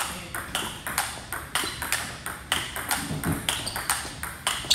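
Table tennis rally of forehand loops against blocks: the ball clicking sharply off the rubber paddles and bouncing on the table, about four or five ticks a second.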